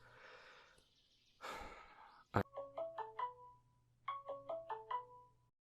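A mobile phone ringing with a marimba-style ringtone: a short, mostly descending run of bright notes, played twice. Before it there is a soft breathy rustle and a sharp click.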